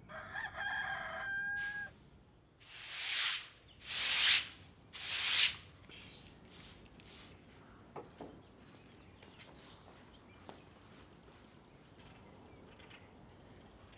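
A rooster crowing once, ending on a long held note, followed by three loud rushing swells of noise, then a few faint clicks and small bird chirps.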